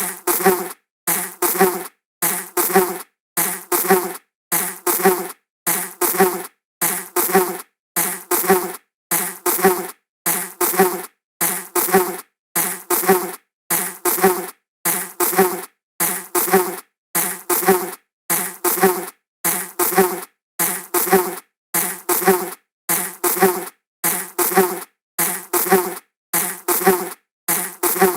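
A flying insect's buzz in short, identical bursts about one and a half times a second, each fading a little and then cutting off sharply into silence, like one brief pass looped over and over.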